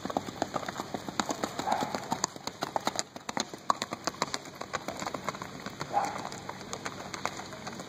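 Hoofbeats of a small racking horse moving at its quick, even four-beat racking gait on packed dirt: a rapid, steady patter of hoof strikes, about five or six a second, growing a little fainter near the end as the horse moves away.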